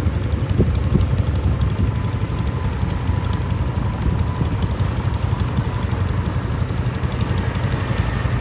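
A farm machine's engine running steadily with a low drone and a fast, continuous rattling clatter over it.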